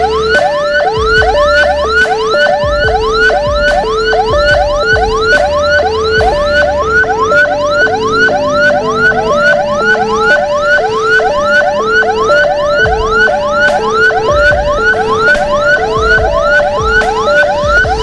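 Electronic emergency sirens of an ambulance escort sounding together: a fast yelp that sweeps upward in pitch about two to three times a second, over a lower steady tone that pulses on and off.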